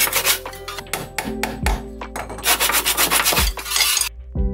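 Small hand saw cutting a wooden dowel plug off flush with a panel, in two runs of quick rasping strokes that stop just before the end. Background music runs underneath.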